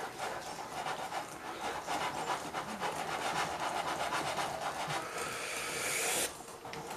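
Waffle batter being beaten by hand in a glass bowl, a steady scraping of quick, even strokes. Near the end the sound turns brighter and hissier for a second or so, then stops suddenly.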